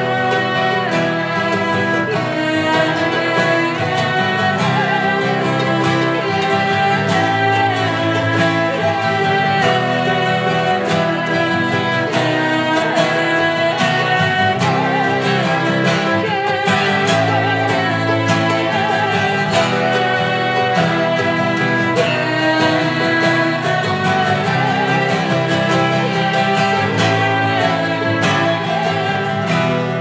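Live acoustic string band playing an instrumental passage: bowed violin and cello over strummed acoustic guitar, at a steady, full level.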